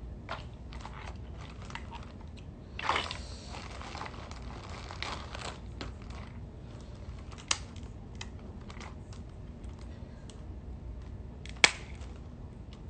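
Crab shells being cracked and snapped apart by hand: scattered small cracks and clicks, a longer crackling stretch about three seconds in, and two sharp snaps, the louder one near the end.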